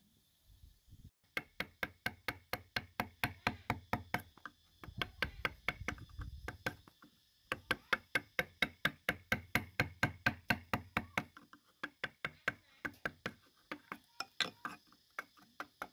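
Wood-carving gouge driven into hardwood by rapid, even mallet taps, about five knocks a second, with a few short pauses between runs of strokes.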